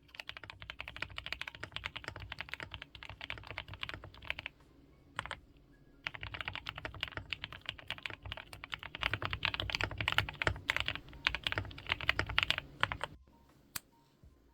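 Fast typing on a GMK67 mechanical keyboard with lubed Gateron Milky Yellow Pro switches, tape- and polyfill-modded. A run of rapid keystrokes, a pause of about a second and a half with one lone keypress, then more rapid typing that stops about a second before the end.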